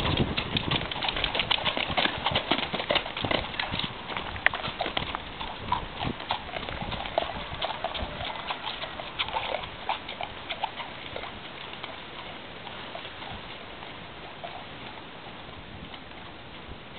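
A run of sharp clicks and knocks, dense at first, then thinning out and fading away over about ten seconds.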